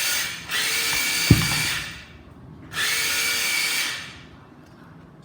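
Makita GA027G cordless angle grinder motor run in three short bursts, each a steady high whine that dies away as it winds down. A sharp knock sounds a little past a second in.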